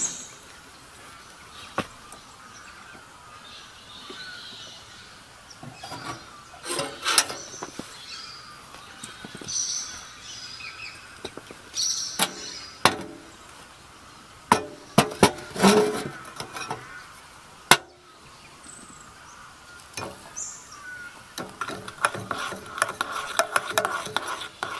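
A metal spoon clinking and scraping in an enamel camping mug and knocking on a steel stove top, in a string of separate sharp clinks; near the end water is poured from a kettle into the mug while it is stirred. Birds chirp faintly in the background.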